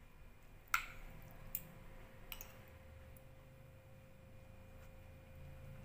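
Metal spoon and fork clicking against a bowl while eating: three or four sharp clicks just under a second apart, the first the loudest, over a faint low hum.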